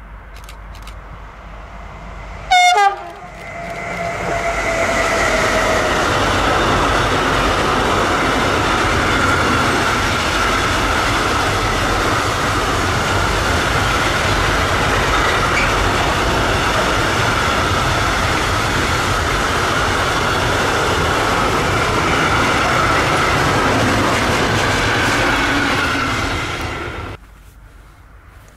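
A train sounds one short, loud horn blast that falls in pitch, then passes close by for over twenty seconds with a steady rush of wheel and rail noise and a high ringing tone over it. The noise cuts off abruptly near the end.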